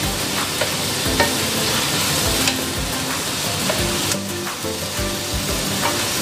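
Vegetables and shrimp sizzling in a hot wok while a wooden spatula stirs and tosses them, with soft scrapes and a few light knocks of the spatula against the pan.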